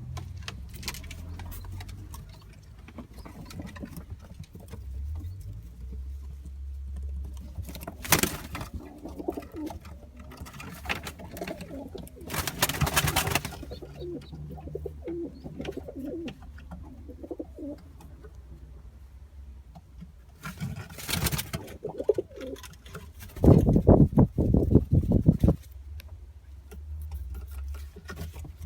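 Pigeons cooing in low, repeated calls, with several short loud bursts of noise; the loudest comes about two-thirds of the way through.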